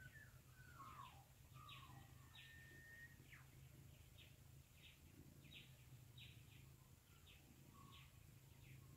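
Faint distant birds of the dawn chorus: a short high call repeated about once or twice a second, with a few sliding whistles and one held whistle in the first few seconds, over a low steady hum.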